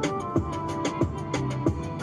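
Background music with a steady beat: a deep kick drum that drops in pitch on each hit, sharp hi-hat ticks, and sustained instrument tones.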